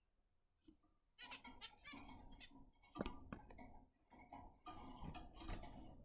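Caged pet finches calling: a quick, busy run of short chirps and clicks that starts about a second in.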